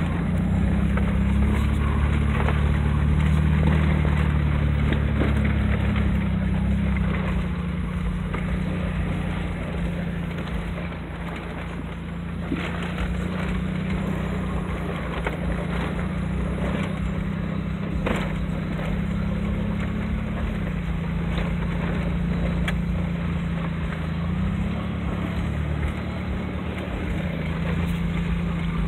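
Vehicle engine and tyres on a rough dirt and gravel road, heard from inside the cabin. The engine note rises and falls with the throttle, and there are a few sharp knocks and rattles from the bumpy track.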